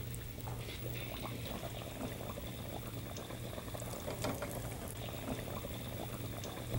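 Battered vegetable pakoras deep-frying in hot ghee: a steady sizzle and bubbling with many small scattered crackles.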